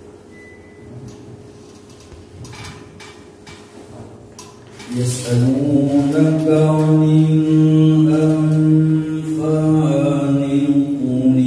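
A man's voice begins a slow, melodic chant about five seconds in, holding long steady notes with small turns in pitch. Before it, only quiet room noise with a faint steady hum and a few soft knocks.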